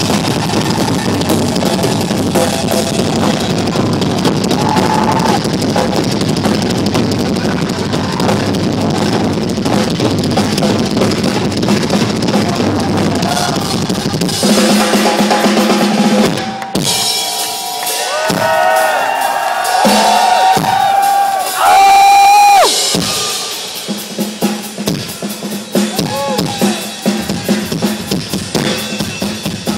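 Live rock drum solo on a full drum kit: fast bass drums and snare hits. Around the middle, long rising-and-falling wails sound over the drumming, and sharp, separate drum hits follow near the end.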